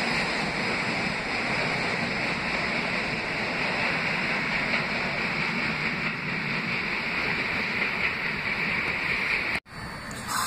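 New York City Subway trains running on the track, a steady rushing roar from wheels and cars, as one train pulls away into the tunnel and another comes out of it. The sound cuts off abruptly about a second before the end.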